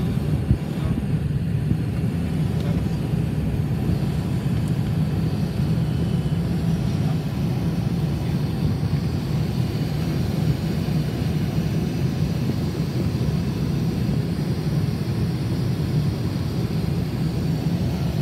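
Steady cabin noise inside the cockpit of a Cessna Citation XLS business jet on approach: a constant low rumble of airflow and its twin turbofan engines, without change.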